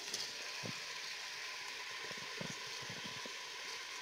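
Meat frying in oil in a cooking pot, a steady sizzle, with a few soft low thuds as a red onion is sliced by hand into the pot.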